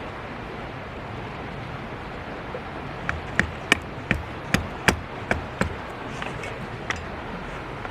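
A run of about nine sharp knocks, roughly three a second, starting about three seconds in, with one more a little later, over a steady background hiss.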